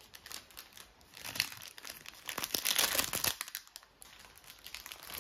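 Thin clear plastic bag crinkling in irregular bursts as it is handled and opened, loudest about a second to three seconds in.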